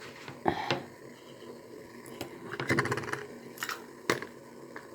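Light clicks and clinks of kitchen items being handled, with a quick rattle of clicks about three seconds in.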